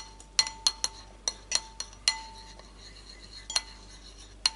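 Metal spoon and fork clinking against a porcelain plate as spices are stirred into whipped cream. A quick run of sharp clinks, each with a short ring, is followed by a pause and then a couple more clinks.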